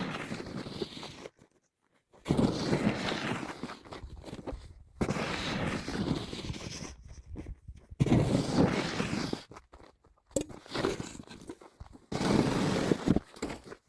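Repeated scraping and crunching strokes, each one to two seconds long with short breaks between, as a yard is cleared by hand.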